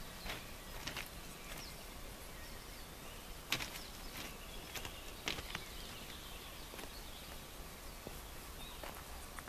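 Birds chirping: scattered short calls and chips over a faint steady background hiss, one sharper chirp about three and a half seconds in.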